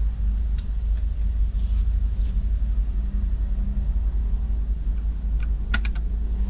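A steady low rumble, with a few sharp clicks near the end: key presses on a compact mechanical keyboard with clicky blue switches.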